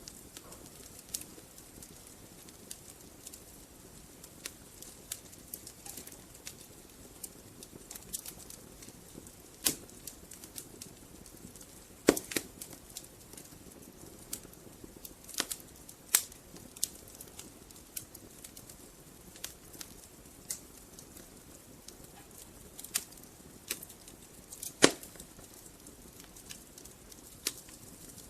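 Wood fire in a fireplace burning, with a soft steady hiss and irregular crackles, a few sharper pops standing out, the loudest about three quarters of the way through.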